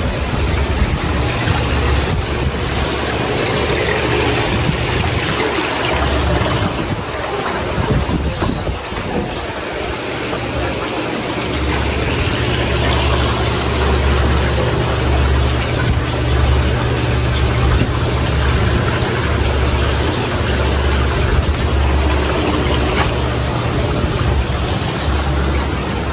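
Wind buffeting a phone's microphone: a steady rushing noise with a low rumble that swells and drops every second or two.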